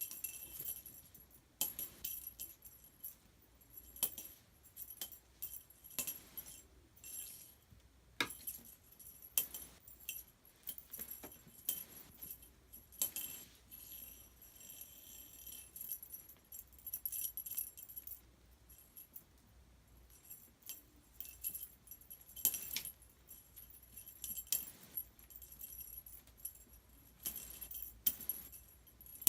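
Small bell on a cat toy jingling irregularly, with sharper jangles every second or so.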